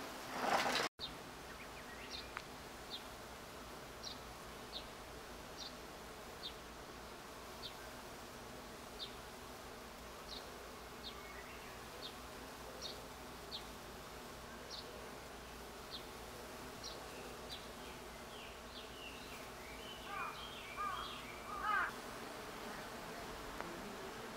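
Bees buzzing steadily among the blooming wisteria, with a bird repeating a short high chirp about once a second and a burst of louder twittering near the end. A brief loud rush in the first second cuts off suddenly.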